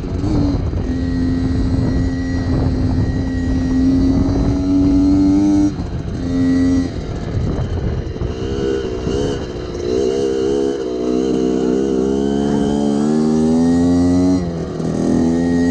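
Motorcycle engine running under throttle as the bike is ridden. Its pitch climbs slowly, drops sharply about six seconds in, wavers and climbs again, then dips briefly near the end.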